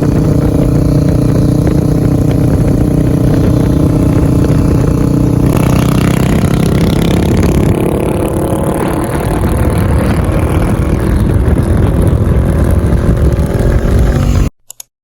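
Bristol Bobber 650 motorcycle engine running loud through its new aftermarket muffler. The sound turns brighter about five and a half seconds in, then cuts off abruptly near the end.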